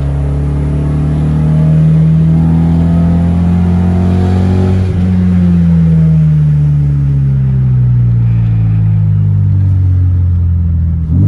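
Toyota 86's flat-four engine running under way. Its note climbs over the first couple of seconds and holds, breaks sharply about five seconds in, then sinks slowly over the next five seconds as the car eases off.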